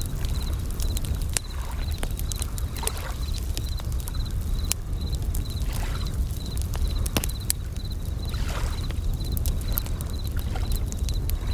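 Campfire crackling with scattered sharp pops, waves sloshing and washing in every few seconds, and bell crickets (suzumushi) chirping high, about twice a second, over a steady low rumble.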